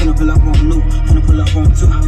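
Hip-hop track with rapping played loud through a pair of Skar Audio SDR 12-inch subwoofers in a ported box, driven by a 1200-watt amplifier. Deep bass hits that drop in pitch repeat two to three times a second under the vocals.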